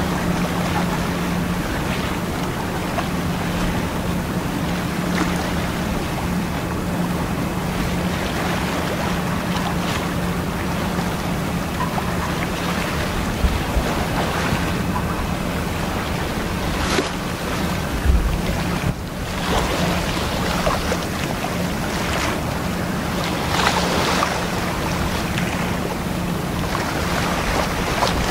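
Steady low engine drone of a harbour tug under way, over a rush of wind on the microphone and water. One dull low thump comes about two-thirds of the way through.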